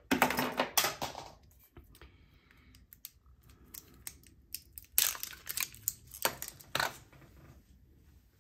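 A sponge-tipped applicator working dry PanPastel soft pastel: two bouts of scratchy rubbing strokes, one at the start and another about five seconds in, with faint scraping between.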